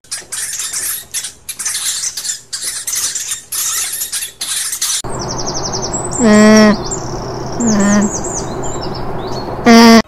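A hamster running in a metal wire wheel, making a scratchy rattling in quick irregular bursts. About halfway through it gives way to an alpaca humming three short calls at one low pitch, the last the loudest, with small birds chirping behind.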